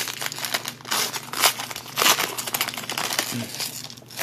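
Trading card pack wrapper being torn open and crumpled by hand: a run of crinkling, crackling rustles with several sharper bursts.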